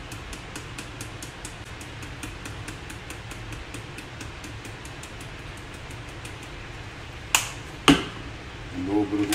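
Even, fast clicking, about four clicks a second, over a low hum, then two sharp knocks about half a second apart near the end, and a voice starting just at the close.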